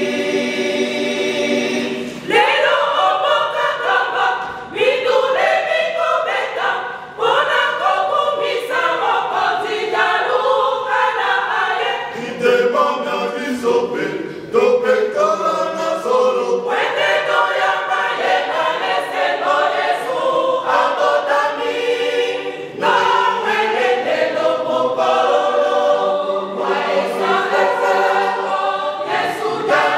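Choir singing a cappella: a long held chord opens, then shorter phrases follow with brief breaks between them.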